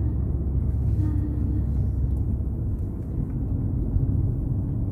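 Steady low rumble of a Fiat car's engine and road noise heard inside the cabin while it drives along at speed.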